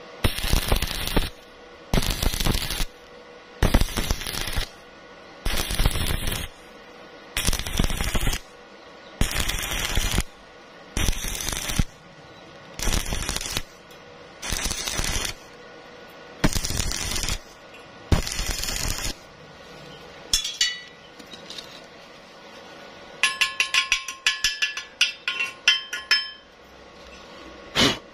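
Stick-welding arc crackling on a thin steel pipe in about eleven bursts of roughly a second each, the arc broken between them in an on-off stitch technique for thin pipe. Near the end, runs of sharp metallic taps with a ringing tone, typical of chipping slag off the bead.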